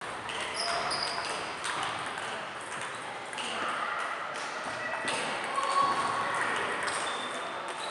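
Table tennis balls clicking off bats and tables, with irregular quick taps from rallies at several tables at once. The sound echoes in a large sports hall.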